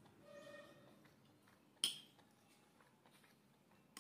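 A single sharp clink of a metal spoon against a ceramic plate about two seconds in, over faint quiet eating sounds, with a short faint tone near the start.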